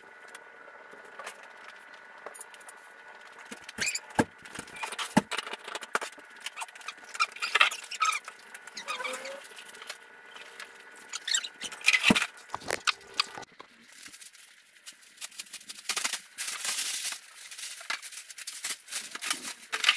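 Crumpled packing paper rustling and crackling as it is handled and pulled out of a wooden shipping crate, with a few sharp knocks against the crate's wood. Near the end a plastic trash bag rustles as paper is stuffed into it.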